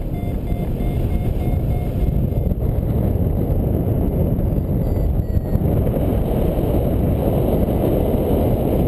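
Wind rushing over the microphone of a paraglider pilot's camera in flight, growing stronger about halfway through. For the first couple of seconds a paragliding variometer sounds a steady run of short beeps, a few per second, its climb tone.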